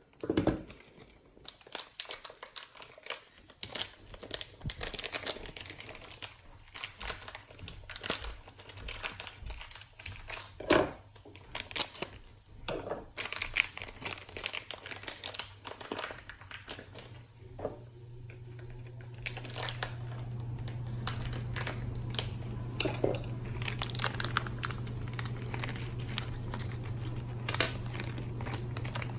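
Plastic packaging crinkling and rustling, with irregular small clicks and taps as small parts are handled. From a little past halfway, a steady low hum sets in and stays.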